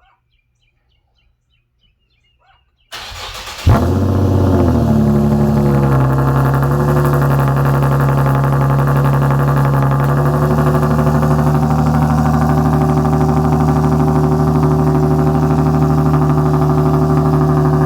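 Infiniti G37's 3.7-litre V6 with an aftermarket Z1 Y-pipe cold-starting: the starter cranks for under a second, the engine catches with a flare of revs and settles into a loud, steady fast idle through the exhaust.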